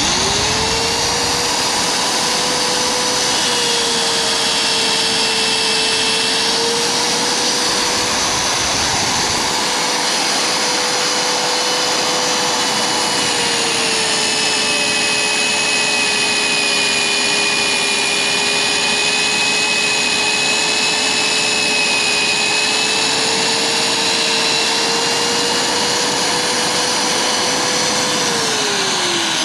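MD40 magnetic core drill boring a hole into a tractor's steel tow-hitch jaw with a 24 mm annular cutter. The motor spins up right at the start and runs as a steady whine, its pitch sagging slightly in the middle stretch as the cutter bites. Near the end it winds down with falling pitch as it is switched off.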